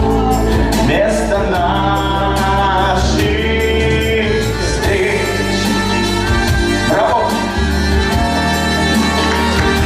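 Pop song playing, with a steady drum beat, bass, and singing.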